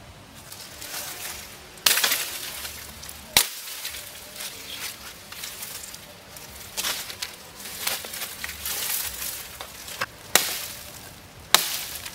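Brush and branches being hacked with a hand blade: several sharp chopping strikes, the loudest about two seconds in and again near the end, amid rustling and snapping of leaves and twigs.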